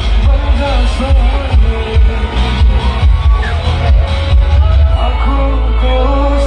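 Loud music with a heavy bass beat and a singing voice carrying the melody. About five seconds in, the beat stops and a long low bass note holds.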